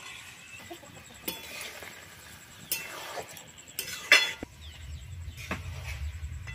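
A metal spatula scraping and knocking against a metal wok as chicken pieces are stirred: scattered sharp scrapes and clinks, the loudest a little after four seconds. A low rumble comes in under the last couple of seconds.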